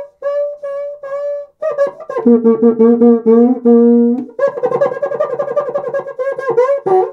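Cuica, a Brazilian friction drum with an 8-inch aluminium shell and synthetic head, played by rubbing its inner stick with a damp cloth. It starts with a few short separate notes, then moves into a rhythmic pattern that jumps between a high and a much lower pitch as the hand presses the head, and ends in a faster, denser rhythm.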